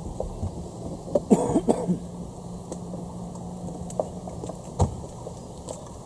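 A person's voice in a short cough-like burst about a second in, over steady outdoor background noise. A low steady hum runs for a couple of seconds, and a few sharp knocks follow, the loudest near the end.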